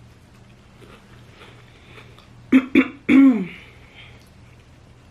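A woman coughs twice, sharply, about two and a half seconds in, then clears her throat with a longer voiced sound that falls in pitch.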